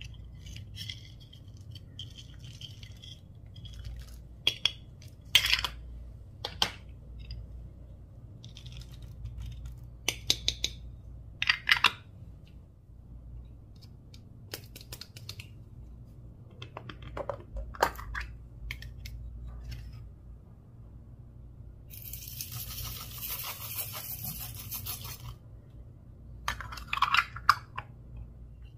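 Slime mixed with mini balls being squished and stretched by hand: scattered sticky clicks, pops and crackles, with a few seconds of dense crackling hiss late on.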